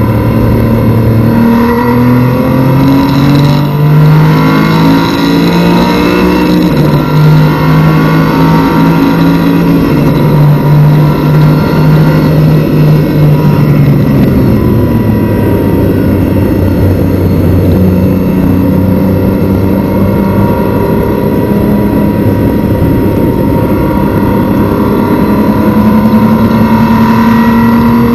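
Porsche Cayman race car's flat-six engine heard from inside the cockpit at full throttle, its pitch climbing in steps through several upshifts, then held high and steady. About halfway through the revs drop as the car slows, then climb steadily again.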